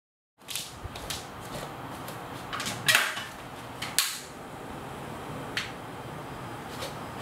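Objects being handled and set down on a wooden table: a few scattered clicks and knocks over a steady room hum, the loudest two about three and four seconds in.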